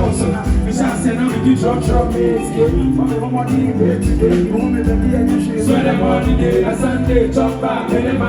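A live band playing an instrumental groove, with bass, drums and keyboard or guitar lines, loud and steady in a steady beat.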